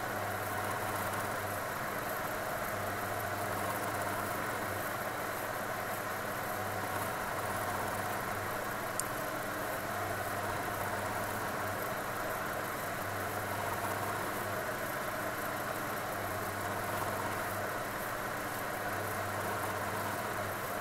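Milling machine running steadily, its spindle turning a gear cutter while cutting teeth in a brass clock wheel.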